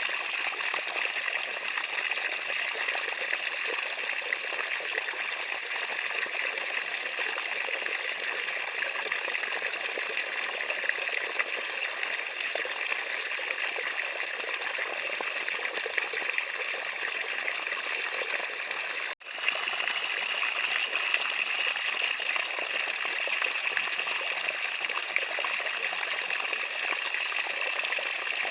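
Running water trickling and splashing steadily. It breaks off for an instant about nineteen seconds in and resumes a little louder.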